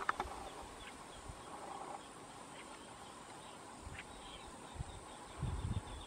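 Faint outdoor ambience of insects, with a few soft clicks. A low rumble comes in near the end.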